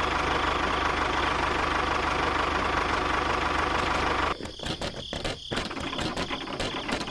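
Small electric motor and gearbox of a toy mini tractor running with a steady whine and buzz. About four seconds in it cuts off suddenly and gives way to quieter, uneven clicking and knocking.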